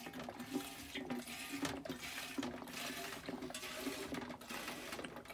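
Alcohol fuel being poured from a plastic bottle into the brass fuel tank of an adjustable alcohol stove: a steady running of liquid.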